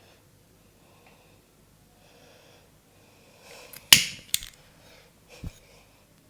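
Sharp snapping cracks during a head massage: the loudest about four seconds in, a second just after it, and a third about a second later, over faint breathy rustling.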